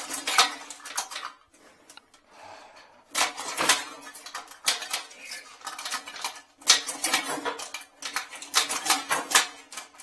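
A toilet paper holder wedged in a porcelain toilet's trap, clinking and scraping against the porcelain as it is worked by hand. The sound comes as irregular clusters of sharp clicks and knocks, with a quieter pause of about a second and a half after the first second.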